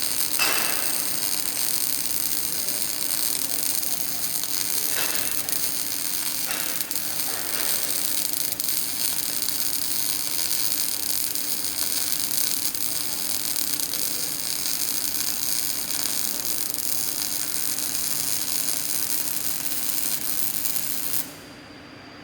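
Electric arc welding: the arc gives a steady, loud crackling hiss that cuts off suddenly about a second before the end.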